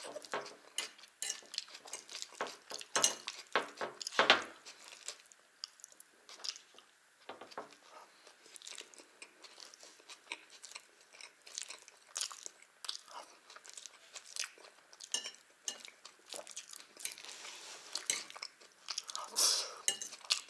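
Close-up chewing of Olivier salad, with a metal fork clicking and scraping on the plate between mouthfuls in an irregular run of short clicks.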